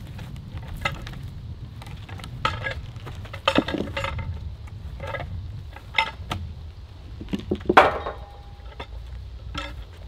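A log being rolled and shifted with a peavey: scattered wooden knocks and metallic clinks. The loudest comes near the end with a brief metallic ring, over a steady low rumble.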